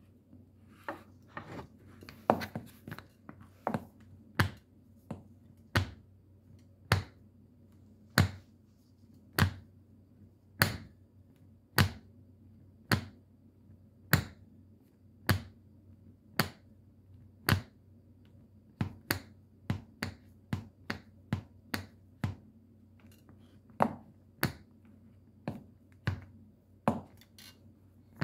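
Metal shoe taps clicking against a hard floor in sharp single strikes. They come irregularly at first, then evenly about a second apart through the middle, then quicker and less regular near the end.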